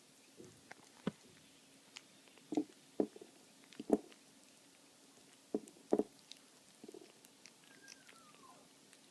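Four-week-old Burmilla kittens eating: scattered small clicks and taps of chewing and paws at the dish, with a faint falling mew near the end.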